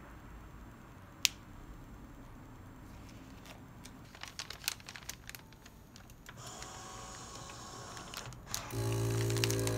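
Light clicks and crinkling of plastic vacuum bags being handled, then about a second before the end the ASV-320D nozzle-type vacuum sealer starts its pump with a steady hum, beginning the automatic vacuum cycle on the inserted bag.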